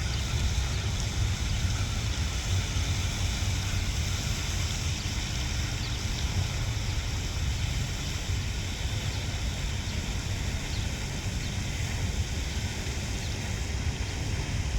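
Wind buffeting the microphone outdoors: a steady low rumble over an even background hiss.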